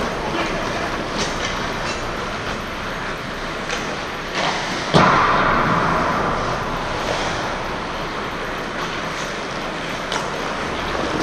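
Ice hockey play: skate blades scraping steadily over the ice, with light stick clicks and one loud, sharp crack of the puck about five seconds in.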